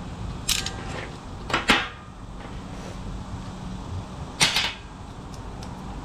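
Metal tools and compressor parts being handled, with three sharp clacks about half a second in, near the two-second mark and again about four and a half seconds in.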